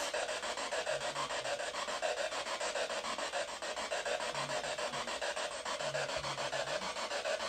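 A steady, rhythmic rasping hiss that pulses several times a second without a break.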